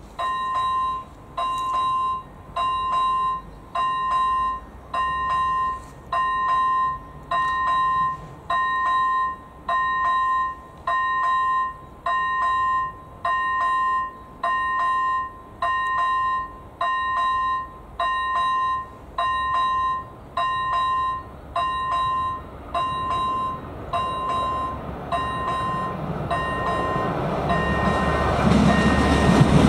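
Electronic level-crossing warning bell (AŽD ZV01) ringing a single tone about once a second, meaning the crossing is closed for an approaching train. In the last few seconds the rumble of an approaching diesel train rises under it.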